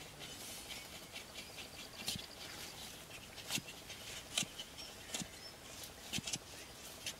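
Clumps of dry grass being pulled apart by hand: rustling with about half a dozen sharp, irregular snaps of stalks.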